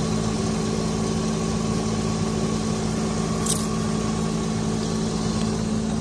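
Pickup truck engine idling steadily with the hood open. A brief high chirp sounds about three and a half seconds in.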